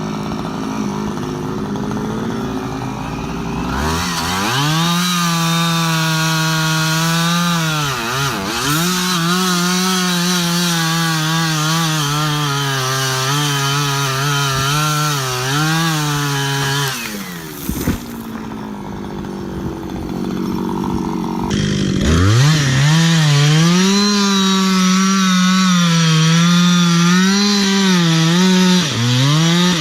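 Chainsaw engine revving up to full throttle about four seconds in and cutting, its pitch sagging and recovering under load. It drops back to idle a little past halfway, then revs up again to cut, with a brief dip near the end.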